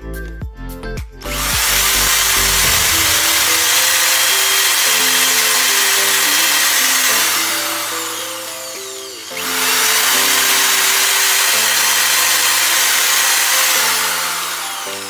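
Ryobi power drill boring through a plastic sprinkler-head part, in two long runs: the first starts about a second in, and the second starts about nine seconds in. Each trails off as the motor slows. Background music plays underneath.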